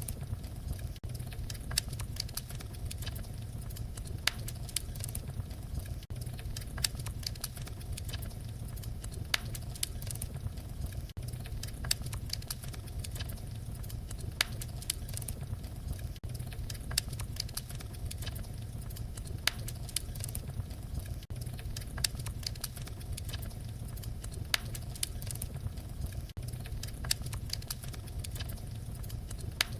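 Wood fire crackling: a steady low rumble of flames with frequent, irregular sharp pops and snaps.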